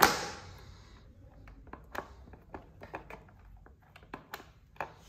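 A sharp click right at the start, then light scattered taps and clicks as the Braava Jet M6 robot mop's water tank is handled.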